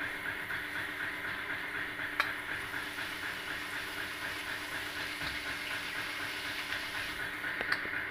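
Steady mechanical hum and hiss with a fast, even flutter, broken by two light clicks, about two seconds in and near the end.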